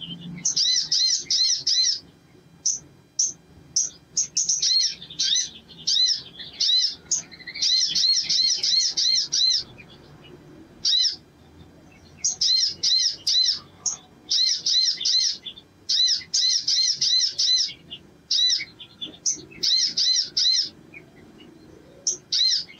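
Male olive-backed sunbird singing in fast bursts of repeated high, upswept chips. Each burst lasts about one to two seconds, with short pauses between bursts.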